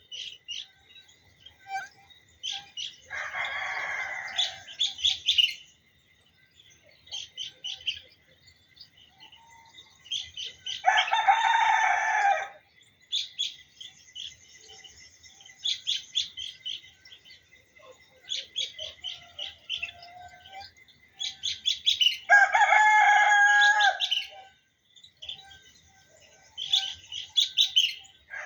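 A rooster crowing three times, roughly every ten seconds, each crow about two seconds long, over songbirds chirping in quick runs of repeated notes.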